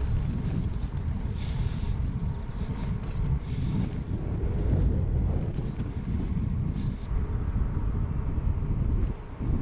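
Wind buffeting the microphone while riding a bicycle on the road: a steady, gusting low rumble.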